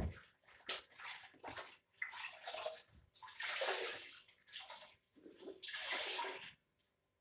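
Young puppies sucking and slurping milk from a bottle teat: wet sucking and smacking in uneven bursts of up to a second, dying away shortly before the end.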